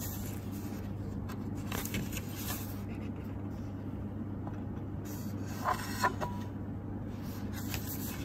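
A steady low hum, with soft paper rustles as a printed booklet is handled and opened, and two short, sharper crackles about six seconds in.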